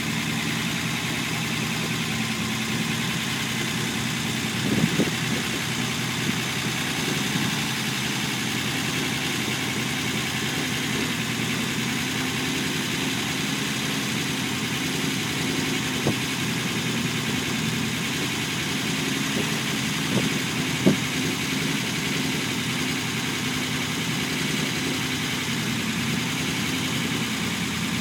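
Unimog 404's petrol straight-six idling steadily on its first run after a rebuild and rewire, with a few brief clicks or knocks about 5, 16 and 21 seconds in.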